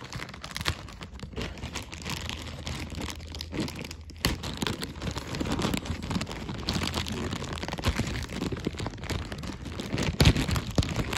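Packaging being opened by hand: continuous crinkling and rustling with tearing, and a few louder crackles near the end.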